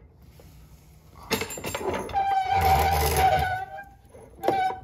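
Plastic underbody trim scraping and squeaking against the car's underside as it is pushed and wiggled into place: a long scrape with a steady squeal from about a second and a half in, then a short one near the end.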